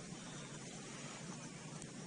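Faint steady background hiss, with no distinct event.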